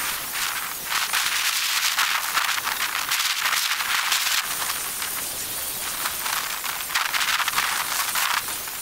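Ozito electric belt sander running on the rough, weathered surface of an old timber block. It gives a steady hiss of abrasive belt on wood that swells and eases as the sander is worked back and forth.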